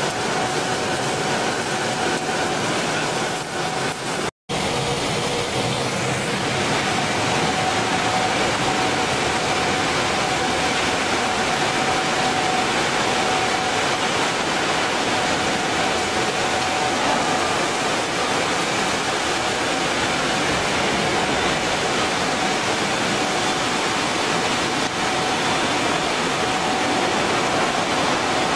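Loud, steady machinery noise of a plastic-flake recycling and colour-sorting line running: an even hiss with a faint steady tone over it. It drops out for a moment about four seconds in.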